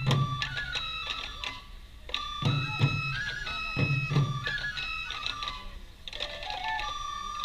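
Japanese festival music for a Sansa dance: a high bamboo flute playing a melody of held notes over low taiko drum beats.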